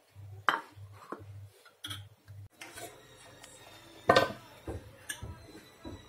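A metal spoon clinking on dishes: a few light taps on a ceramic soup bowl, then sharper knocks against a glass jar as the spoon scoops from it, the loudest about four seconds in.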